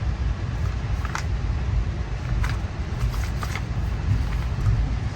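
Interior running noise of a stainless steel Budd dome car rolling on the rails: a steady low rumble, with a few brief high clicks about a second in and again around the middle.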